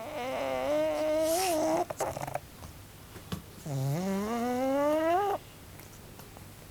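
Pug snoring loudly in its sleep: two long, tuneful snores a couple of seconds apart, the second climbing steadily in pitch before cutting off.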